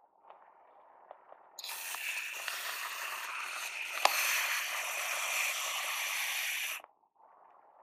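Aerosol whipped cream can spraying through its nozzle into a plastic dome lid: a steady hissing squirt that starts about a second and a half in and cuts off suddenly about five seconds later, with one sharp click partway through. Faint handling noise before and after.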